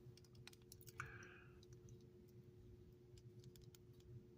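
Near silence with faint scattered clicks: the metal tools of a Swiss Army knife clone being prised out by fingernail, with a short soft scrape about a second in. A faint steady hum runs underneath.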